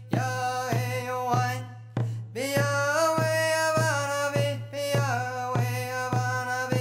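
A man singing a Paiute-Shoshone circle dance song over a steady drum beat, about three strokes every two seconds. After a short break about two seconds in, the voice holds a long note and then steps down in pitch.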